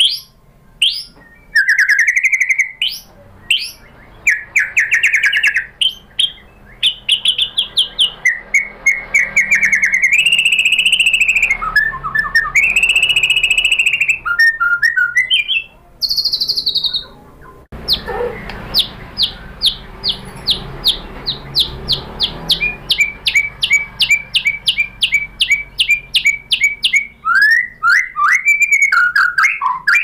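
Male white-rumped shama (murai batu) singing a varied, loud song of whistled phrases, trills and gliding notes. About two thirds of the way in it breaks into a long run of rapid, evenly spaced sharp notes, the 'tembakan' shots prized by keepers, then returns to whistled phrases near the end.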